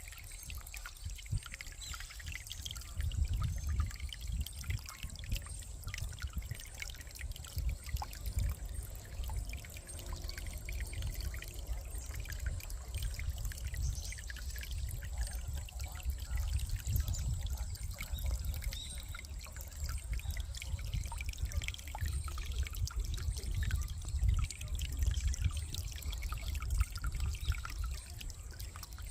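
A small brook trickling and splashing without a break, with many small clicks in the water noise and a low, uneven rumble underneath.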